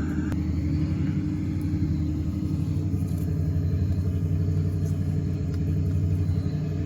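A nearby engine running steadily, a low even rumble.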